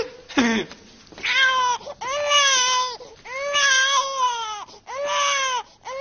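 Toy baby doll playing a recorded infant cry: a run of wails about a second long each, rising and falling, one after another with short breaks. The doll's crying cannot be switched off.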